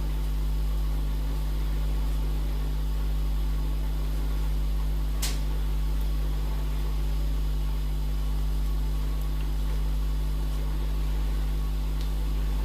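A steady low hum with a faint hiss, with one short click about five seconds in.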